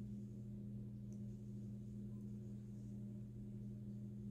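Steady low electrical hum, a mains hum of a few fixed low tones that does not change.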